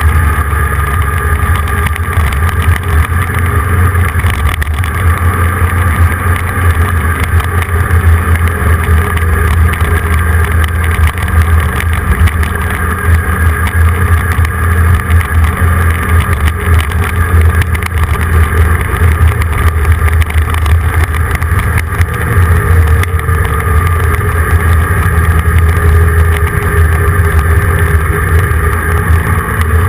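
A vehicle driving at steady speed: constant engine and road rumble, with wind on the microphone of a camera mounted on the vehicle.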